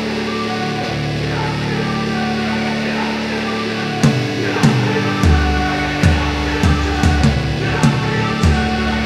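Background rock music with electric guitar; a steady drum beat comes in about four seconds in.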